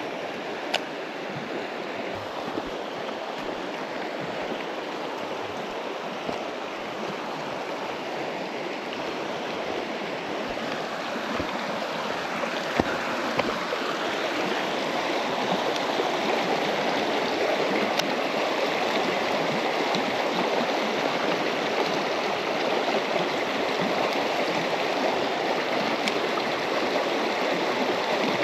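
Rushing water of shallow river rapids, a steady churning wash that grows louder about halfway through as the white water comes closer. A few brief sharp clicks sound over it.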